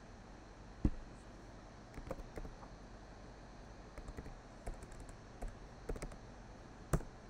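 Typing on a computer keyboard: single keystrokes and short runs of taps with pauses between, the sharpest about a second in and near the end.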